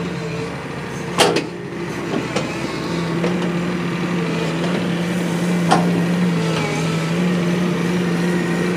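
Crawler excavator's diesel engine running steadily, a low hum that grows a little stronger about three seconds in, with a few short sharp knocks over it.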